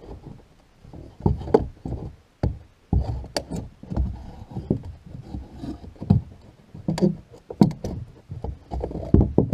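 Wall trim being pried off: irregular knocks, taps and sharp cracks of the trim and its nails working loose.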